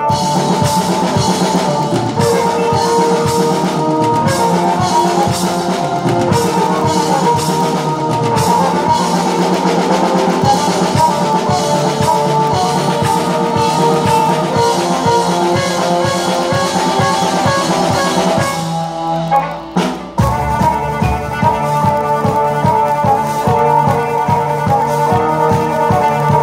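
Live band playing an instrumental on drum kit and keyboard, the drums keeping a steady beat under held keyboard notes. About two-thirds of the way through, the drums drop out briefly and the band comes back in together on a hit.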